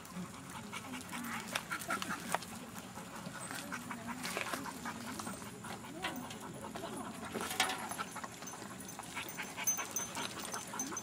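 Dogs panting and moving about, with scattered short clicks and knocks.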